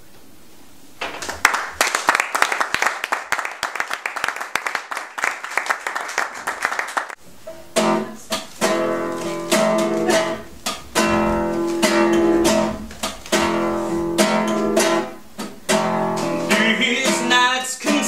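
Nylon-string classical guitar played solo. Fast, light strumming starts about a second in, then at about seven seconds it turns to fuller, louder chords with ringing notes.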